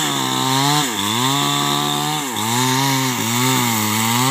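Small two-stroke chainsaw cutting into the trunk of a large albasia (albizia) tree. The engine note dips and recovers several times as the chain bites into the wood under load.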